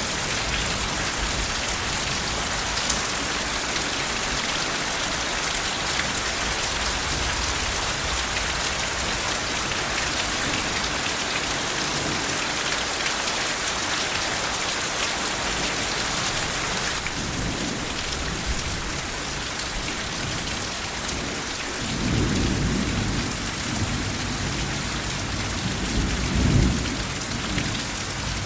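Steady rain falling with an even hiss. In the second half, low rolls of soft thunder rumble three times, the loudest near the end. Partway through, the rain turns slightly lighter.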